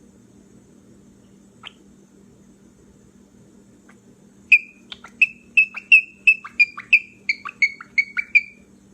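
Grey cockatiel squeaking: one short squeak, then a few seconds later a quick run of about a dozen short, sharp squeaks, roughly three a second. A faint steady hum runs underneath.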